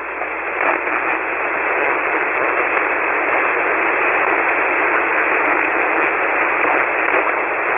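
Hiss of band noise from a shortwave receiver tuned to single sideband with no station transmitting, heard through the narrow voice passband. It grows louder over the first two seconds, then stays steady.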